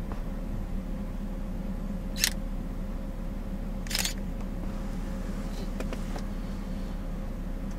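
Steady low hum of an idling vehicle engine, with two short sharp clicks about two seconds apart, the first louder, and a few faint ticks after them.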